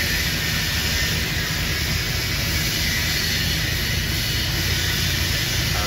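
Steady background noise: a constant low hum with an even hiss over it, unchanging throughout.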